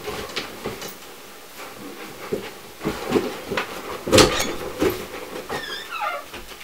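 A person getting out of bed and walking across a carpeted room: quilt and bedding rustling, with a series of bumps and knocks, the loudest about four seconds in. A short squeak that slides downward comes near the end.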